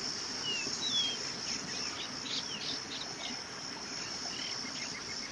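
Insects keeping up a steady high-pitched drone, with a few short bird chirps over it.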